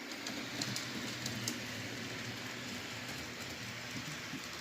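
HO scale model train running on the layout track: a steady rolling rumble and motor hum, with a few faint clicks from the wheels.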